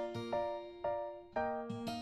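Background music: a simple melody of struck keyboard notes, a few each second, each ringing and fading.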